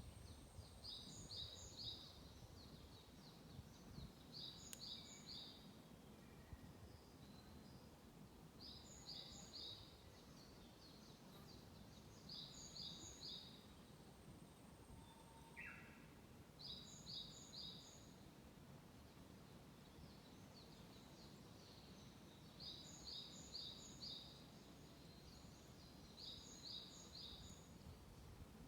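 A small songbird singing faintly: a short phrase of three or four quick high notes, repeated about every four seconds, over a steady low background hum.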